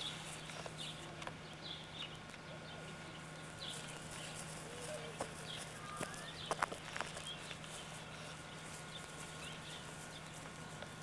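Farmyard animal and bird calls: scattered short chirps and a few lower gliding calls, with a couple of sharp knocks a little past halfway, over a steady low hum.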